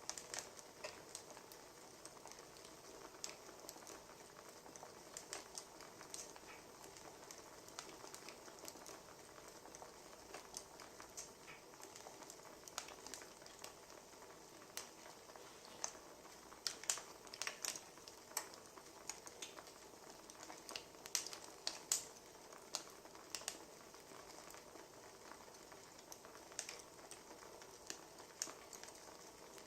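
Wood fire burning, with irregular crackles and snaps over a soft steady hiss; the pops come thicker and louder in the middle stretch.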